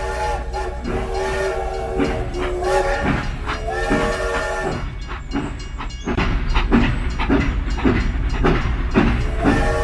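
Steam-train whistle sounding in four short, chord-like blasts over a steady low rumble, followed about halfway through by fast rhythmic chugging, two to three strokes a second, with the whistle starting again at the very end.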